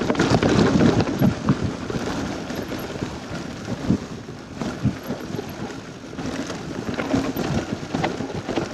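Wind rushing over the microphone, mixed with the rattle and knocks of a Niner mountain bike on 29-inch wheels bouncing fast over a rocky, broken singletrack descent. The jolting is loudest in the first second or so, eases in the middle and picks up again near the end.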